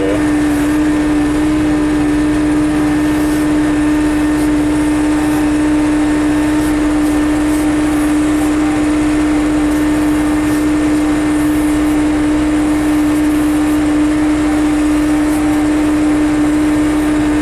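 John Deere 6300 tractor's diesel engine running at a steady speed, a loud, even drone with a strong constant hum.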